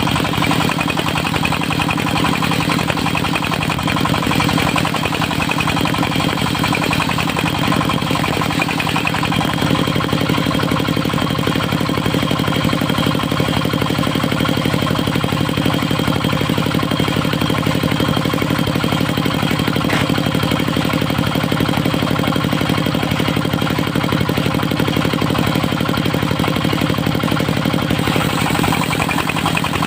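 Engine driving a portable circular-saw sawmill, running steadily with an even hum and a high steady whine; its tone shifts slightly about nine seconds in.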